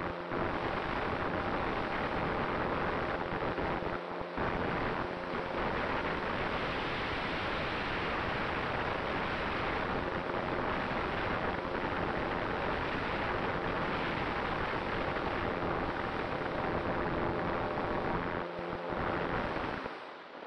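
Steady rushing wind noise on the onboard camera of a Cularis RC motor glider in flight, with a faint steady hum beneath it. It dips briefly about four seconds in and again near the end, then fades away.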